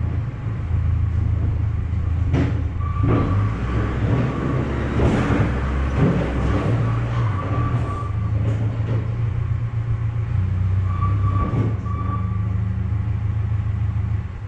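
Streetcar sweeper being dragged slowly along the rails by a chain. A steady low machine drone runs throughout, with scattered knocks and clanks of metal, and a thin squeal that comes in twice.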